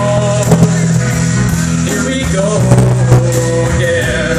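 Live rock trio playing: acoustic guitar, electric bass and drum kit, with a few sharp drum hits.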